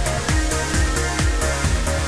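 Electronic dance music with a steady kick-drum beat, about two beats a second, over hi-hats and synth notes.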